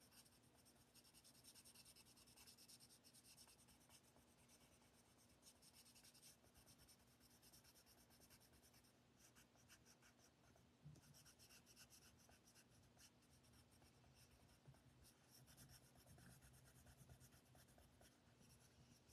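Faint, continuous scratching of a coral colored pencil on cardstock, in quick short strokes, shading in a small area of a stamped image.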